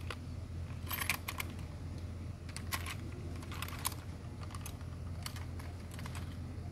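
Scattered light metal clicks and rattles of a fish lip-grip and scale being handled to weigh a caught snakehead, a few clicks close together about a second in, then more spread out.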